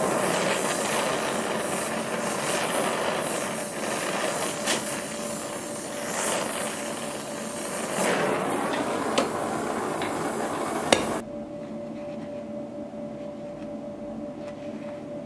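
Motor-driven grinder working steel with a rough, rushing noise that swells and eases. The grinding stops suddenly about eleven seconds in, leaving the motor's steady hum running on.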